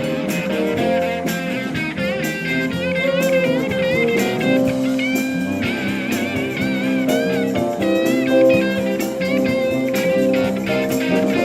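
Blues music led by a guitar: a lead line of held, wavering notes over a rhythm accompaniment.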